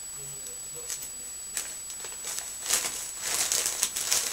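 Wrapping paper and gift bags rustling and crinkling as a kitten plays among them, in an irregular run of short bursts that starts about two seconds in.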